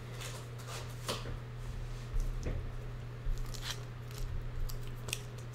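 Paper, cards or wrappers being handled at close range: scattered short rustles, crinkles and clicks, about a dozen, over a steady low hum.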